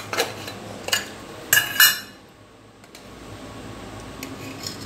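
Metal clinks and taps as a small baking powder tin is prised open with a metal spoon, the loudest a ringing clatter about a second and a half in. After that, only soft scrapes and ticks as the spoon works in the open tin.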